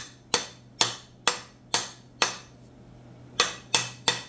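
Small steel sledge hammer striking the end of a wooden axe handle eight times, about two blows a second with a short pause after the fifth, driving the axe head down for its final seat. The blows change pitch once the head stops advancing, the sign that it is fully seated.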